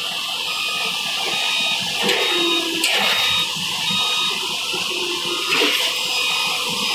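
Working noise of a Harsco track relaying train: a steady mechanical hiss with faint, short, repeated high beeps and a few metallic clanks, about two, three and five and a half seconds in.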